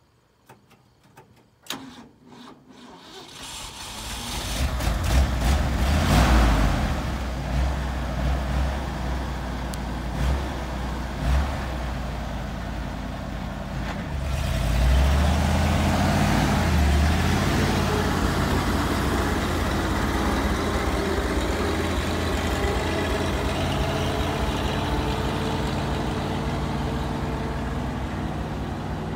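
Engine of a 1974 Ford medium-duty feed truck starting after a few clicks and revving up. About halfway through it rises again as the truck pulls away, and it runs steadily while slowly fading as the truck drives off.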